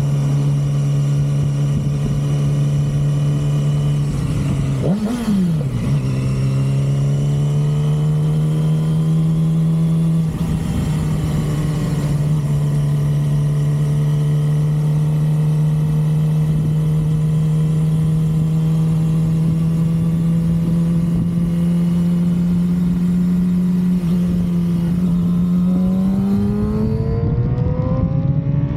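Vehicle engine running at a steady speed with a strong, even drone. About five seconds in, the pitch briefly dips and then rises. Near the end it climbs as the engine speeds up.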